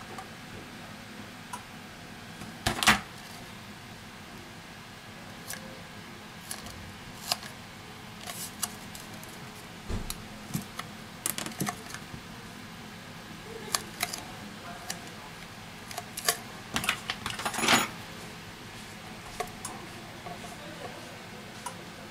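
A bent Huawei P8 Lite 2017 phone housing being flexed straight by hand: scattered small clicks and creaks, with two louder ones about three seconds in and near eighteen seconds.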